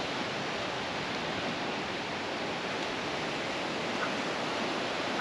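Small waves breaking and washing up a sandy beach, a steady hiss of surf.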